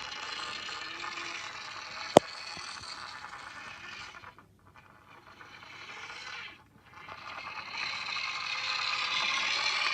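Toy car being pushed along a surface, its wheels scraping in three stretches, with one sharp click a little over two seconds in.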